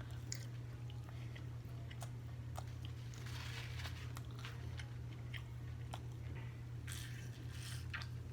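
A person eating close to the microphone: bites, chewing and small crunches with mouth clicks, over a steady low hum.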